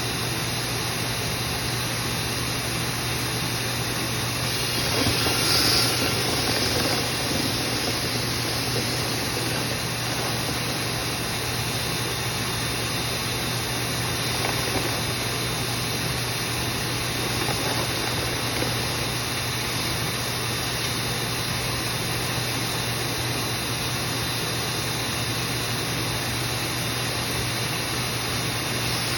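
A motor running steadily with a low hum and a rushing hiss of moving air, briefly louder about five seconds in.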